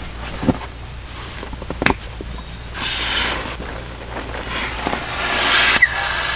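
Bedding and a cushion rustling as a person kneels and moves on a car-boot mattress: two spells of fabric swishing, with a couple of light knocks early on, over a steady low hum.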